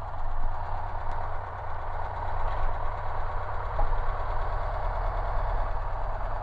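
1959 Cessna 150's four-cylinder Continental O-200 engine idling while the taildragger taxis, its propeller turning slowly; a steady, even low beat.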